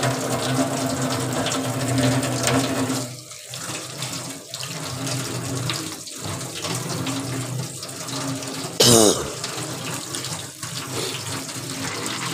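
Tap water running into a steel sink and through a small plastic strainer full of soaked pulse grains as they are rinsed and rubbed by hand. The flow splashes unevenly with brief dips. There is one short loud burst about nine seconds in.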